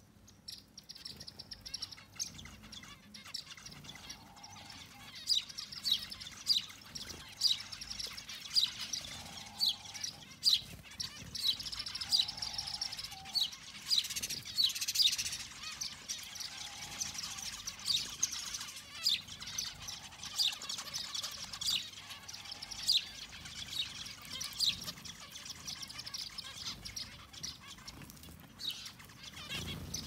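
Small flock of zebra finches chirping: short high calls, several a second, all the way through. A lower, drawn-out note comes in every few seconds.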